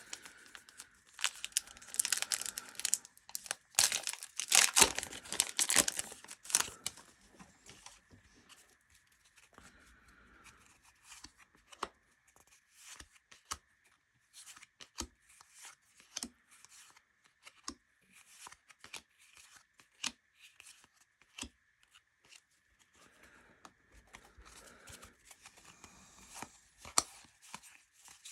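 Foil wrapper of a trading-card pack being torn open and crinkled for the first several seconds, then the quiet clicks and slides of cardboard baseball cards being handled and flicked through one by one.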